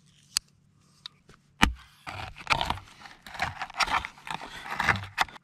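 Knife blade punching into a steel tin can's lid and sawing around it to open the can: a sharp click, a louder one about a second and a half in, then a run of short metallic scraping strokes.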